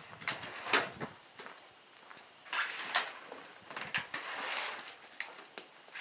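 A freshly sawn shagbark hickory slab being pushed by hand across the top of the log on a sawmill bed: wood scraping on wood with several knocks, the loudest about a second in.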